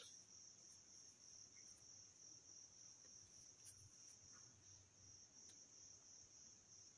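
Near silence apart from a faint, steady, high-pitched cricket trill.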